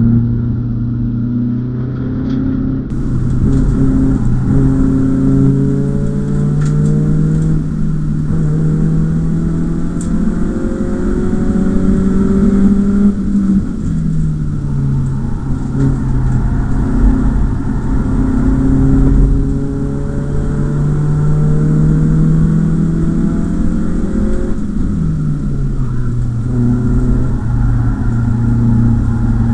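BMW E36 318is four-cylinder engine heard from inside the cabin while driven hard on a circuit, its pitch climbing slowly for several seconds at a time under load and dropping sharply twice, about halfway through and again near the end, as the driver lifts or changes gear.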